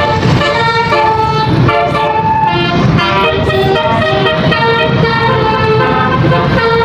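Telolet musical air horn (basuri) of a Rahma Nursyifa bus playing a melody: a string of short held notes changing pitch every fraction of a second, with a steady low rumble underneath.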